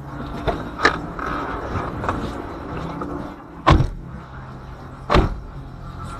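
Steady low mechanical hum with several sharp knocks or bangs; the loudest comes past the middle and another follows about a second and a half later.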